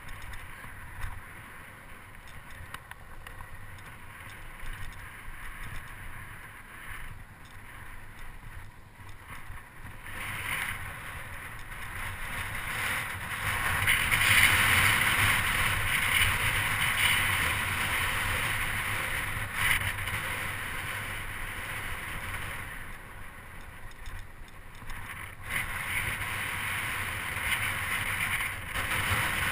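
Wind rushing over the microphone of a camera riding on a moving bicycle, with a low rumble of tyres on rough, cracked asphalt. It swells about ten seconds in, stays loudest for several seconds, eases off, then rises again near the end.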